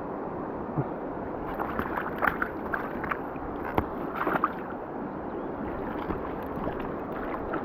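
Steady rushing of river water and heavy rain, with a cluster of short sharp splashing sounds about one and a half to four and a half seconds in.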